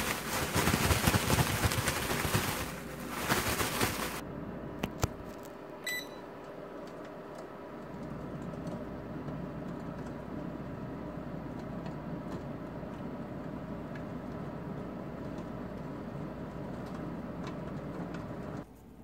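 A plastic bag of oiled bread cubes shaken hard for about four seconds, rustling and crinkling. A single beep follows, and then an air fryer runs with a steady hum that cuts off near the end.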